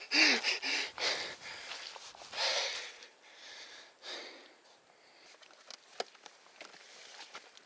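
A man breathing hard in loud, rushing gasps, with a short grunt at the start, from the strain of trying to lift a fallen motorcycle on slippery ground. After about four seconds the breathing dies down and only faint scuffs and clicks remain, with one sharp tick near the end.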